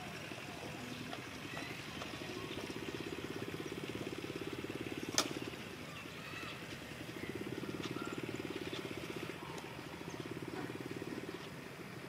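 Engine running steadily in the background, with a fast even pulse that swells twice for a few seconds each time. One sharp click about five seconds in.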